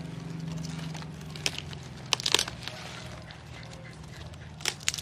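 Mustard-green plants rustling and crackling as they are pulled up and handled: a few short, sharp crackles, the strongest a little over two seconds in, over a steady low hum.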